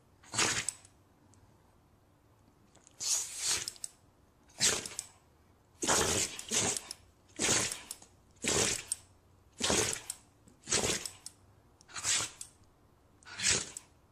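A dog sneezing over and over: about ten short, sharp sneezes, roughly one a second, after a pause of about two seconds near the start.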